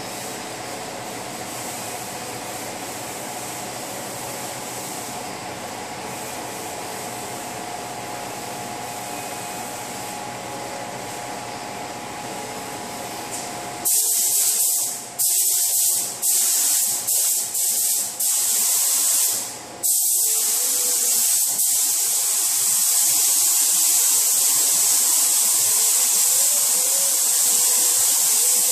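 A steady background hum for the first half. Then a SATA spray gun starts hissing as it sprays silver base coat onto a car fender, in several short trigger pulls at first and then one long unbroken pass.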